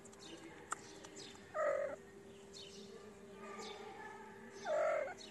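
A cat meowing twice, two short calls about three seconds apart.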